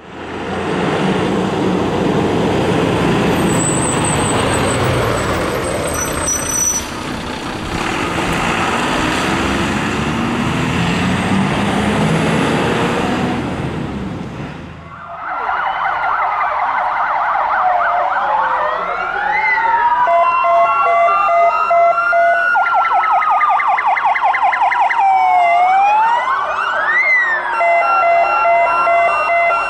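A dense, loud rumbling noise for about fifteen seconds, then several fire engine sirens sounding together: wails sliding up and down over steady alternating tones.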